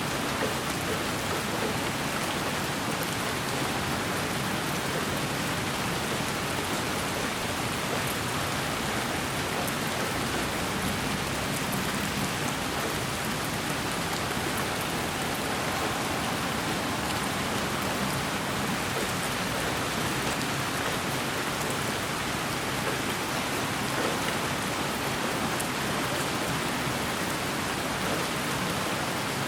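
Continuous white noise for lulling a baby to sleep: a steady, even hiss like rain, with no change in level.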